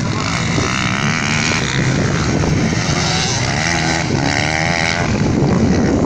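Dirt bike engines racing on a dirt track, revving up and falling back as the riders accelerate and shift. Two clear rising whines stand out, about a second in and again around four seconds in.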